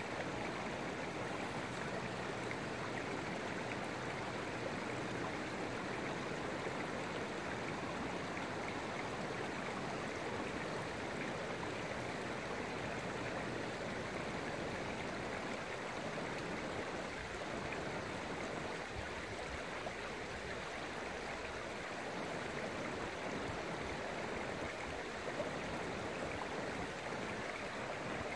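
Steady rushing of river water running under and beside the ice of a partly frozen river.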